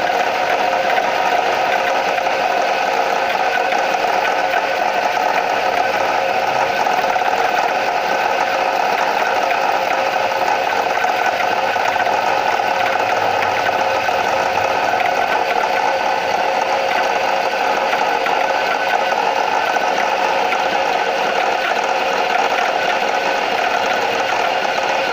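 2003 Nissan Primera P12 engine running with a steady, rapid mechanical clatter: the engine knock the owner is showing.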